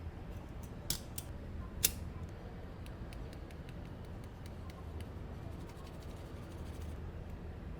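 Light clicks and taps of small hand tools, with three sharper clicks about a second in, over a steady low hum.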